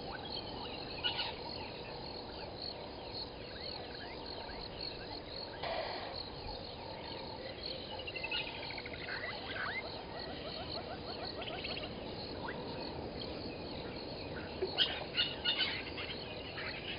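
Waterhole bush ambience: a chorus of insects and frogs with repeated bird calls. Several rapid trains of chirps run through the middle, and the chirping grows louder near the end.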